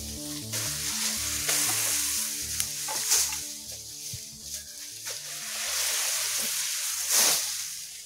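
Armfuls of freshly cut grass rustling and swishing as they are thrown and spread, with the loudest swishes about three seconds in and again near the end. Background music with repeating low notes plays underneath.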